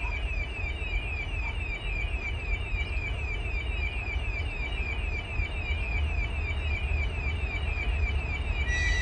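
Electronic warning signal sounding a repeated falling chirp, about four a second, over a low rumble. Near the end a steady horn tone with several pitches joins in.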